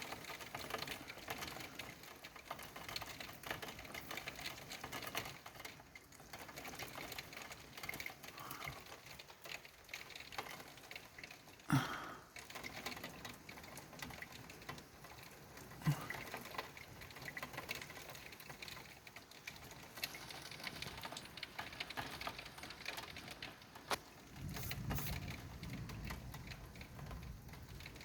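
Heavy rain pattering densely on a nearby surface, with two sharp louder knocks partway through and a low rumble near the end.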